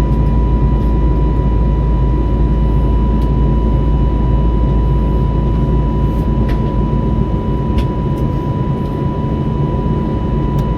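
Airbus A320neo cabin noise in flight: a steady, loud rumble of the engines and rushing air, with a constant high tone over it and a few faint clicks.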